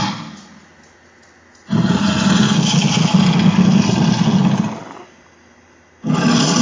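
Monster roar sound effects for a fictional kaiju. A roar fades out at the start, a loud roar cuts in abruptly a little under two seconds in and lasts about three seconds, and another begins suddenly near the end.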